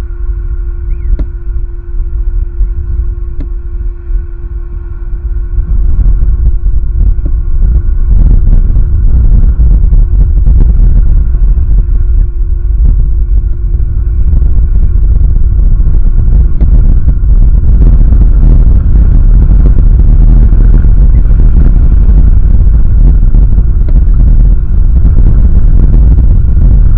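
Wind buffeting an outdoor camera microphone: a loud, low rumble that grows stronger about six seconds in and then holds steady.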